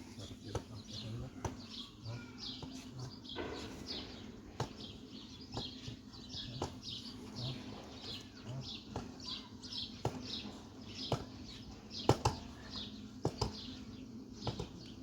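Small bird chirping repeatedly, short falling chirps about twice a second, with scattered sharp knocks and a faint steady hum underneath.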